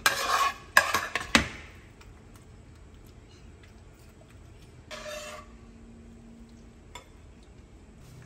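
A metal spoon clattering and scraping against a glass mixing bowl and a frying pan as hot food is spooned in and stirred. A burst of clinks and sharp knocks comes in the first second and a half, another scraping clatter about five seconds in, and a single click near seven seconds.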